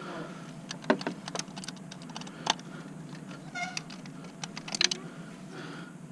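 Hand tools clicking and clinking against metal parts in an engine bay, in scattered irregular taps, with one brief ringing clink near the middle.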